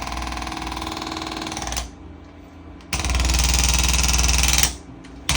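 Pulstar chiropractic adjusting instrument delivering rapid mechanical impulses to the back, in runs. One run stops about two seconds in, and after a quieter second a louder run of nearly two seconds follows. It starts again just before the end.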